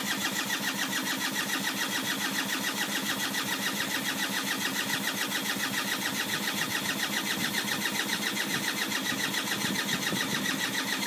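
Sinnis Hawk motorcycle's electric starter cranking the engine with a steady, even, rhythmic chug, the engine never firing; it stops at the very end. The bike cranks but will not start.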